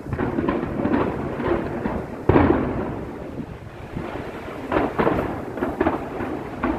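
Aerial fireworks bursting: one sharp bang about two seconds in that trails off into a long rumble, then a few more bangs near the end.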